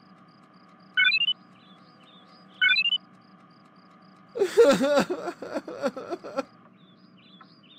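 A man crying in wavering sobs for about two seconds, starting a little past halfway. Before that, a short rising chirp sounds twice over a faint background of bird chirps.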